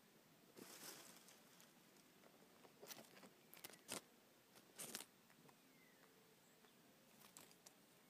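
Faint, irregular rustling and crackling of dry sticks and straw as a male satin bowerbird moves about on his bower right beside the camera. There are sharper scuffs and brushes around three, four and five seconds in, and a few more near the end.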